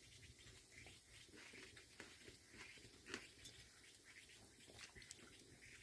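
Near silence, with faint scattered soft clicks and ticks.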